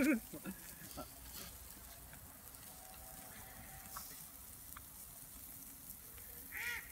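Meat sizzling faintly on a small charcoal grill, a steady low hiss with a few small crackles. A goose honks briefly near the end.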